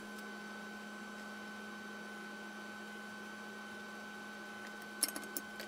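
Steady electrical mains hum with a fainter high whine above it, and a few light clicks about five seconds in.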